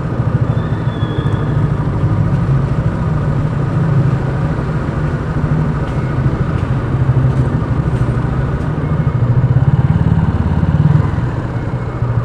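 Suzuki Gixxer SF 250's single-cylinder engine running at low speed as the motorcycle rides down a ramp and through an underground car park. It swells a little louder for a moment about ten seconds in, then settles back.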